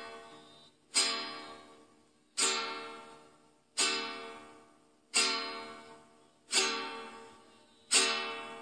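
Background music: a plucked string instrument strikes a chord about every second and a half, six times, each chord left to ring and fade before the next.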